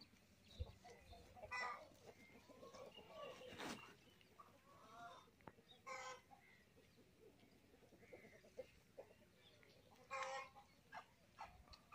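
Chickens clucking faintly: three short calls about four seconds apart, with small scattered farmyard sounds between them.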